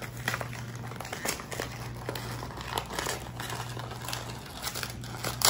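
A paper cookie bag being pulled open and handled, crinkling with irregular crackles, with one sharper snap near the end.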